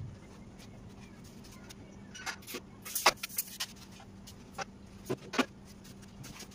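Scattered sharp knocks and clicks of wooden boards and tools being handled, bunched together about three seconds in and again around five seconds, over a steady low hum.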